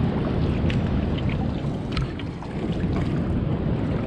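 Steady low rumble of wind on the microphone and surf, with scattered small clicks and splashes of water in a shallow rock pool.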